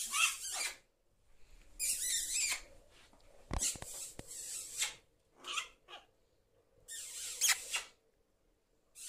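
Black-tailed prairie dog giving a run of jump-yip calls: about five high, drawn-out yips, each under a second long, with a couple of sharp knocks in the middle. The jump-yip is the excited display call of a contented prairie dog.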